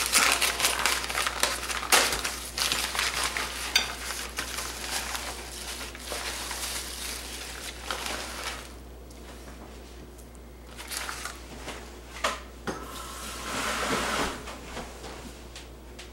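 Butcher's wrapping paper crinkling and rustling as it is pulled off a venison roast, dense for about the first eight seconds, then a few softer rustles and light knocks.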